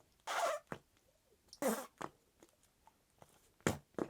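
Flarp noise putty being squished, giving short, wet squelching fart-like noises: a few spaced-out squelches, then quicker ones near the end.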